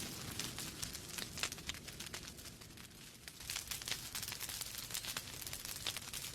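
Fire crackling in a fireplace: a dense, irregular run of small sharp pops and snaps over a low steady rumble of the flames, thinning briefly about halfway through.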